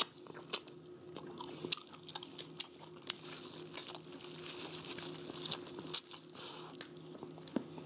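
Two people biting and chewing crunchy food held in their hands, with scattered sharp crunches and a soft steady chewing sound.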